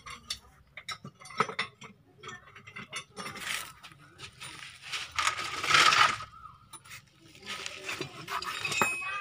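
Light metallic clinks and clatter of hand tools and metal parts under the car, with two short noisy rushes in the middle, the second the loudest.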